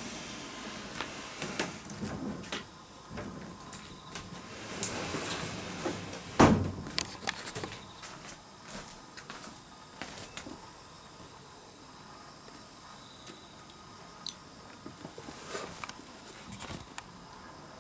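Handling and movement noises: scattered knocks, clicks and rustling, with one loud thump about six seconds in. After that it goes quieter, with only a few small clicks.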